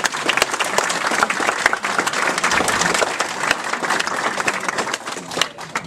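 Audience applauding, many hands clapping together; the applause thins to a few scattered claps and dies away near the end.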